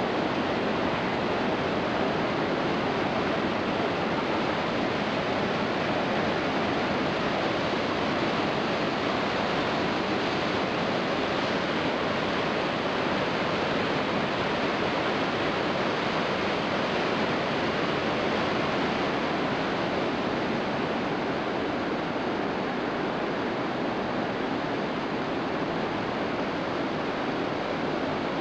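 Iguazu Falls' cascades: a steady, unbroken rush of falling water that holds the same level throughout.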